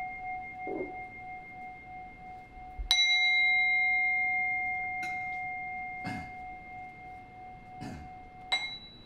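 A Buddhist bowl bell ringing on from an earlier strike, struck again about three seconds in and ringing long with a clear tone, then struck once more, more lightly, near the end. A few faint knocks can be heard between the strikes.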